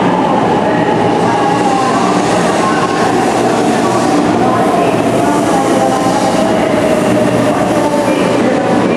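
A JR West 500 series Shinkansen pulling into the platform and slowing as its cars pass close by. A steady rushing rumble carries a whine that falls slowly in pitch as the train decelerates.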